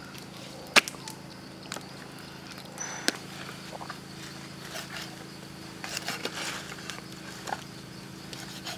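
Knife and cleaver knocking and scraping on a wooden chopping block while a baby crocodile carcass is cut and scraped: a sharp knock about a second in, another near three seconds, and a stretch of scraping around six seconds, over a faint steady hum.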